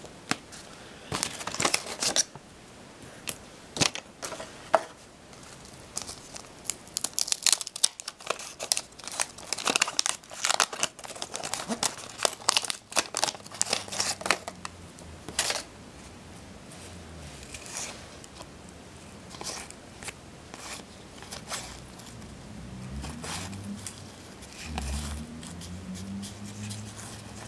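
Wax-paper wrapper of a Garbage Pail Kids trading card pack being torn open and crinkled by hand, a run of sharp crackles. They are thickest in the first half and thin out to scattered crackles later.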